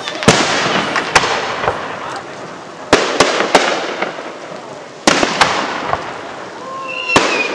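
Aerial firework shells bursting in the sky: about eight sharp bangs, some in quick pairs, each trailing off in a fading crackle and echo.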